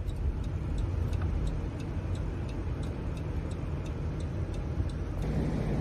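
A car's turn-signal indicator ticking about two and a half times a second over the low rumble of the engine and tyres inside the cabin. The ticking stops near the end as the engine noise rises.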